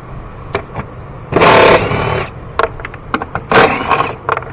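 Two short bursts of a small motor-driven tool spinning, taking out the 12 mm bolts on the air box, with sharp clicks and clatter of tools and parts in between.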